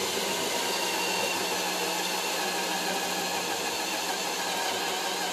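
Cordless drill running steadily with a spot weld cutter bit, the cutter spinning against the sheet-steel floor pan to cut out a spot weld. A constant whine with several steady tones over a hiss, with no let-up.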